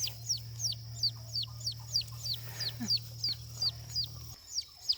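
Wild turkey poult peeping: high, falling notes repeated steadily about three times a second. Under it runs a low steady hum that cuts off near the end.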